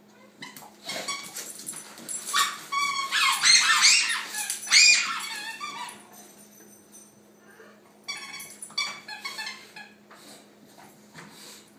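Bulldogs at play: high-pitched squealing yips and whines in a run that is loudest about four to five seconds in, then a second, quieter run of yips from about eight to ten seconds.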